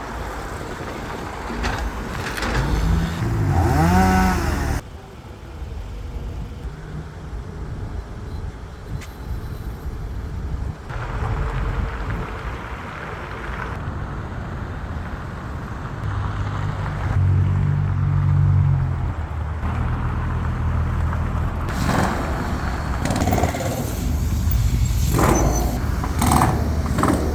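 Road traffic: cars and trucks passing with engine hum and road noise. A short wavering squeal comes about four seconds in, and the sound cuts abruptly several times.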